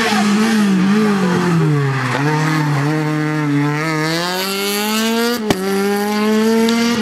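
Rally car engine on a stage run: the revs fall as it slows for the bend about two seconds in, then climb steadily as it accelerates away, with a sharp crack about five and a half seconds in.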